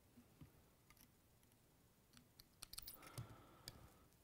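Near silence with faint small clicks from fly-tying scissors and fingers handling thread and hook at the vise, thickest about three seconds in.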